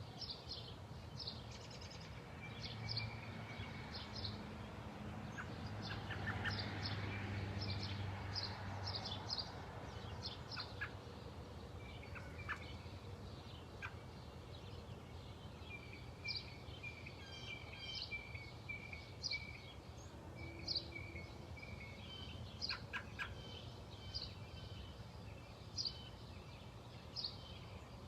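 Songbirds chirping: short high chirps throughout, with a run of quick repeated notes in the second half. A low rumble swells and fades in the first third.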